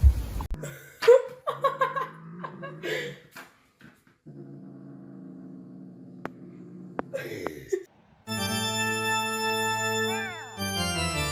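A pet's short cries in the first few seconds, then music of held organ-like keyboard chords from about four seconds in.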